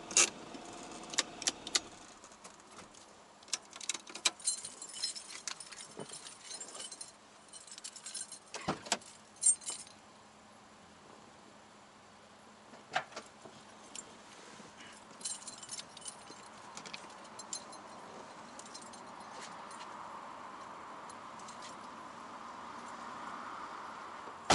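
A bunch of car keys jangling and clicking at the ignition of a Toyota AE86, in irregular clusters of metallic clinks. A single loud knock comes right at the end.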